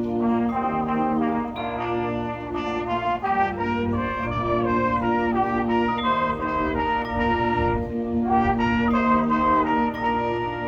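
Marching band playing, the brass section carrying sustained chords and a moving melody over held low notes.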